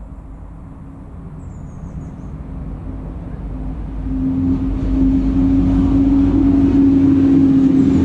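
A motor engine's low, steady hum and rumble, growing steadily louder as it draws nearer, with no change in pitch.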